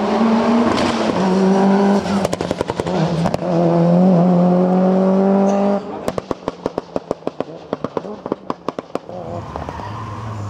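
Toyota Celica GT-Four rally car accelerating hard through the gears, its engine note climbing and dropping at each gear change, with a brief burst of popping exhaust about two seconds in. About six seconds in it lifts off, and the exhaust pops and crackles in a rapid string of bangs on the overrun. Near the end a second car's engine comes in low and steady.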